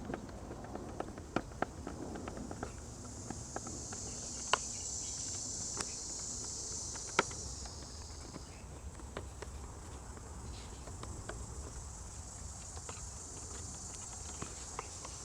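Steady high chirring of crickets, with scattered sharp clicks of a tool and screws on the plastic air filter housing cover as its screws are tightened back in.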